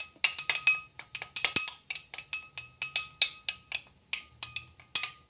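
Long metal spoon stirring a glass tumbler of water, clinking against the glass several times a second, each clink leaving the glass ringing at the same steady pitch. The stirring dissolves honey and salt settled at the bottom of the glass.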